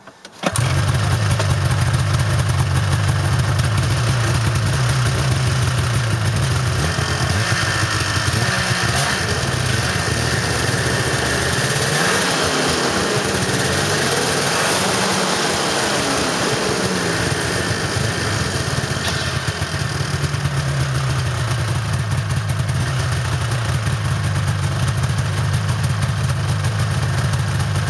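1997 Ski-Doo MX Z 670's Rotax 670 two-stroke twin engine starts about half a second in and runs, revved up and down several times in the middle before settling back to a steady idle. This is a test run after fitting a new primary drive clutch.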